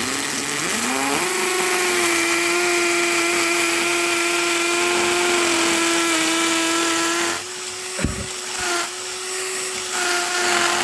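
JPT 21V cordless drill in hammer mode boring a 6 mm masonry bit into a cement brick. The motor winds up over about a second to a steady high whine, drops in level with a single knock about seven to eight seconds in, then keeps running.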